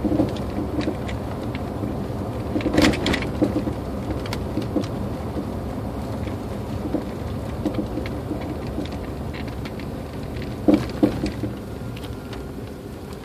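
Inside the cab of a 2004 Toyota Tacoma coasting downhill: steady road and tyre noise with irregular light pops from the suspension, a quick 'pop, pop, pop' like distant gunfire or a popcorn maker, in louder clusters about three seconds in and again near eleven seconds. The popping is an unresolved suspension fault that new steering rack bushings did not cure.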